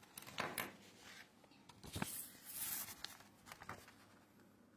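Faint rustling of a sheet of paper being handled, in several short irregular bursts.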